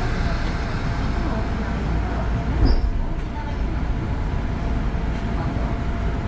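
Kintetsu electric commuter train pulling out of the station and gathering speed, heard from the driver's cab: a steady low running noise of the train on the rails. A single clunk comes about two and a half seconds in.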